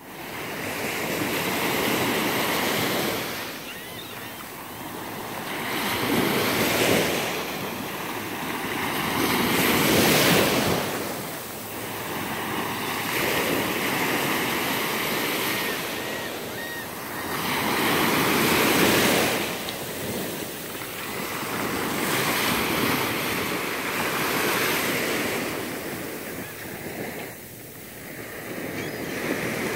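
Small waves breaking on a sandy beach and washing up the shore, the surf swelling and fading every few seconds.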